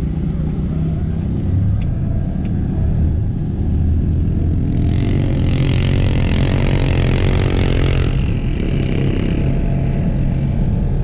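Polaris Ranger 1000 side-by-side's twin-cylinder engine running steadily under way. A rushing noise rises over it for about three seconds midway, with two light clicks a couple of seconds in.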